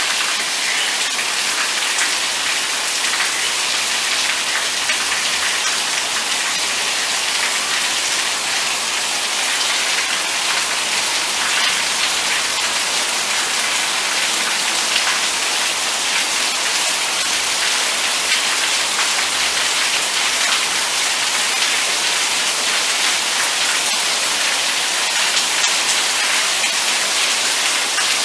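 Steady heavy rain falling on a paved yard and corrugated roofing, with water running off the roof edges.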